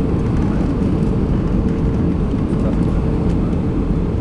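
Steady cabin noise of an Airbus A320 on final approach, heard inside the cabin by a window over the wing: a loud, even rumble of the engines and rushing air, with a faint steady hum running through it.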